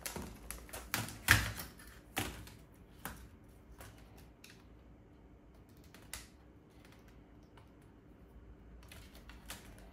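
Sharp plastic clicks and taps as a laptop's touchpad connector and keyboard are handled and fitted back into the chassis, several in the first three seconds and one more about six seconds in.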